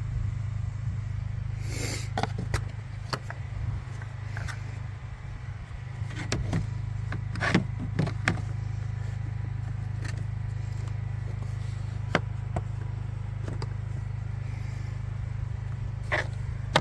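Plastic engine cover of a 2010 Toyota Prius being handled and lined up over its mounting studs: scattered light clicks, knocks and scrapes of plastic, a few sharper knocks about halfway through and near the end, over a steady low hum.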